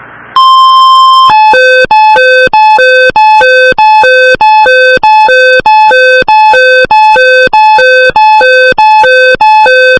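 Emergency Alert System alert tone. A steady beep lasts about a second, then a loud two-note high-low warble repeats at nearly two cycles a second, announcing the next weather warning.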